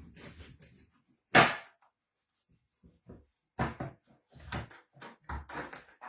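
Kitchen handling noises: one sharp bang about a second and a half in, then a run of shorter knocks and rustles near the end.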